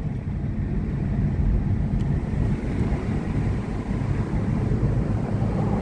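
Car driving with the windows open: a steady rumble of engine and road noise, mixed with wind coming through the open windows.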